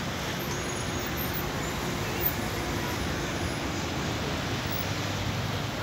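City street traffic: cars and other vehicles idling and creeping along in a jam, a steady engine rumble, with one short knock about two seconds in.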